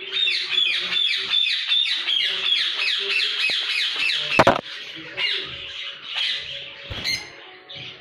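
Lovebirds chattering: a rapid run of short, falling, high-pitched chirps, loud at first and thinning out in the second half. A sharp knock about halfway through, and a smaller one near the end.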